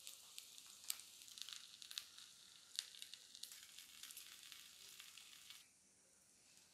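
Fatty beef slices frying in their own rendered fat and water in a nonstick pan, a faint sizzle with scattered sharp crackles and pops. The sizzle falls away sharply about five and a half seconds in.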